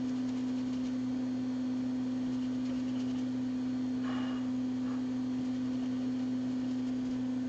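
Steady electrical hum at one constant low pitch from workbench equipment, with a faint brief rustle about four seconds in.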